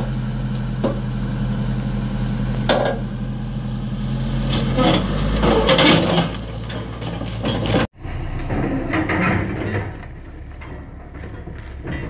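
Komatsu D155A crawler bulldozer's diesel engine running as the machine crawls off the lowboy trailer, its steel tracks clanking and grinding over the ramps. Several loud clanks come from about three to six seconds in as it tips down onto the road; the sound breaks off for an instant about eight seconds in and goes on quieter and rougher.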